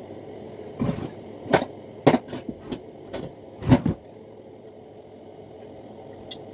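A quick series of sharp knocks and clatters over about three seconds, with the loudest near the end of the run, over a steady low hum.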